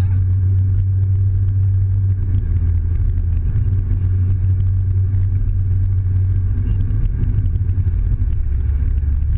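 Steady low drone of engine and road noise inside the cabin of a Mazda6 cruising on the highway. The drone drops a little lower near the end.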